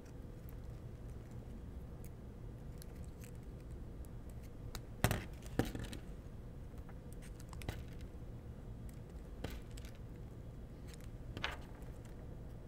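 Light clicks and scrapes of nylon zip ties being pushed through a 3D printer's bed plate and the plate being handled, with a couple of sharper clicks about five seconds in and another near the end, over a low steady room hum.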